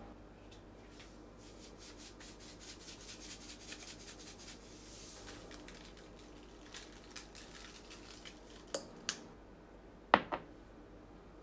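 Kitchen food-prep handling: a run of soft rubbing and scraping strokes, then two light clicks and a sharp clink with a short ring near the end, the clink being the loudest sound.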